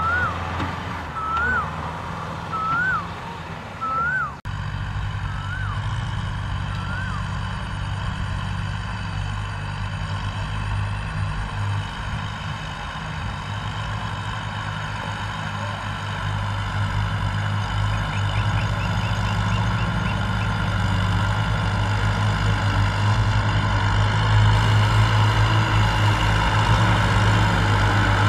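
Kubota M6040SU tractors' diesel engines running steadily as they haul loaded trailers, growing louder near the end as one comes close. In the first few seconds a short rising chirp repeats about every second and a half.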